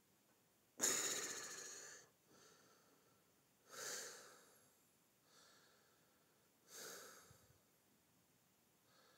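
A person breathing close to the microphone. There are three strong breaths about three seconds apart, the first the loudest, each fading over about a second and followed by a fainter breath.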